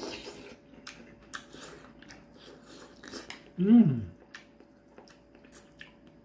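Eating sounds of ramyeon: a slurp at the very start, then chewing and lip smacks heard as scattered short clicks. A short hum, rising and falling in pitch, comes about three and a half seconds in and is the loudest sound.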